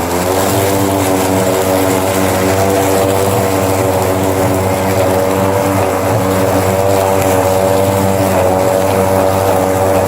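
Ryobi 20-inch battery-powered self-propelled lawn mower running: its electric motor and spinning blade give a steady, even-pitched hum.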